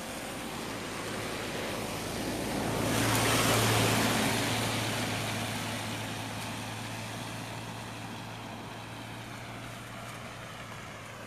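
A road vehicle driving past, growing louder to a peak about three to four seconds in, then slowly fading away, with a steady low engine hum underneath.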